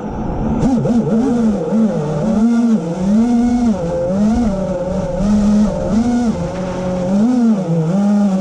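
Small electric propeller motors humming, the pitch dipping and rising again and again, about once a second, as the throttle is worked.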